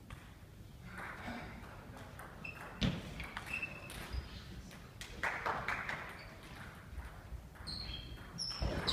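Table tennis ball clicking back and forth off the bats and the table during a doubles rally, a string of short sharp clicks with gaps between points.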